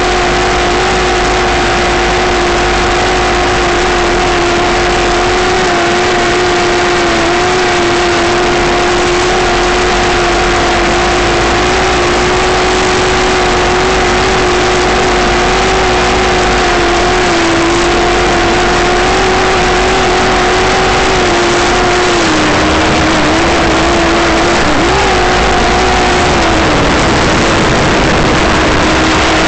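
Electric motor and propeller of an FPV model aircraft running at steady throttle, one constant tone over a steady hiss of wind and noise. The pitch wavers and drops slightly in the last few seconds as the autopilot eases the throttle.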